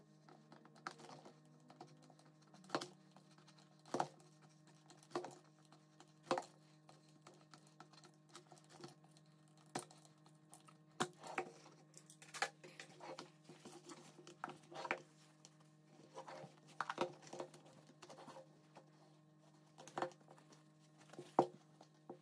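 A thin clear plastic tub being cut with a craft knife and handled on a tabletop: scattered crackles, clicks and taps with a few sharper knocks, over a steady low hum.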